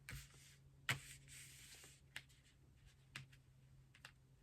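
Faint handling of tarot cards: a sharp click about a second in, a brief soft rustle just after it, then a few light scattered clicks, over a low steady hum.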